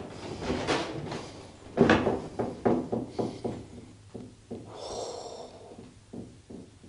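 Footsteps and scuffs over rubble and broken boards on a littered floor, with a quick cluster of crunches and knocks about two seconds in.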